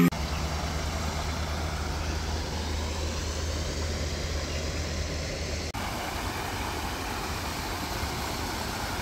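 Steady outdoor background noise: a low rumble under a broad hiss, changing abruptly about six seconds in.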